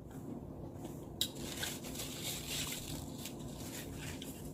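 Faint mukbang eating sounds: soft chewing and squishing of food with small utensil ticks, and a sharp click about a second in.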